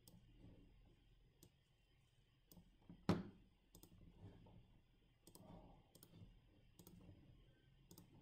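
Computer mouse clicking about once a second, faint over quiet room tone, with one louder thump about three seconds in.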